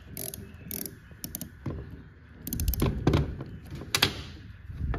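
Scattered metal clicks and clinks of hand tools and parts being worked on a Gen 3 Hemi cam phaser. A quick run of clicks comes about two and a half seconds in, and a sharper, ringing clank about four seconds in.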